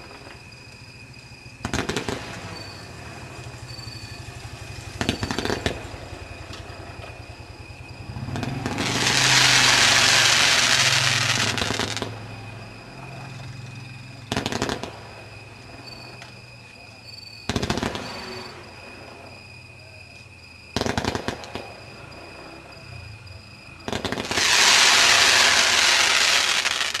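A 110-shot 'Peacock' fireworks cake firing. Rapid clusters of sharp pops and bangs come every few seconds. Two longer, louder stretches of dense crackling run about 9 to 12 seconds in and again near the end.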